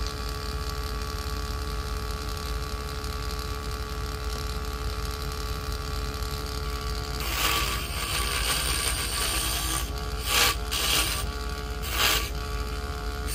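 Small motor of a Vevor mini woodworking lathe running steadily with a constant whine. About seven seconds in, a hand chisel starts scraping the spinning wood, coming in several short, rough passes.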